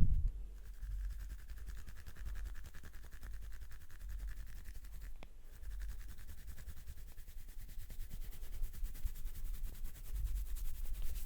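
Fingers rubbing and scratching through oiled hair on the scalp during a head massage, close to the microphone, with an uneven low rumble of hand and body movement underneath.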